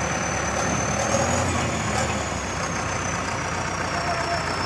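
Heavy diesel engine running steadily, with a thin high whine that rises a little and then slowly falls.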